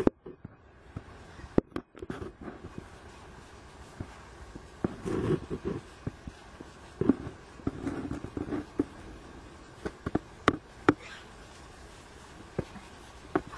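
Wild boar grunting in short low bursts a few times, with sharp clicks and cracks scattered between them.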